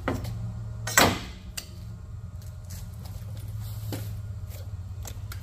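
Nargesa CC90 CNC tube bender bending a steel tube around its die. A steady low hum runs throughout, with a sharp clunk about a second in and a few lighter clicks later on.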